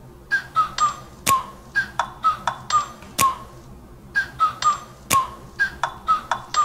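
Sparse intro of a hip-hop backing track: short high pinging notes with sharp clicks, several a second at an uneven rhythm.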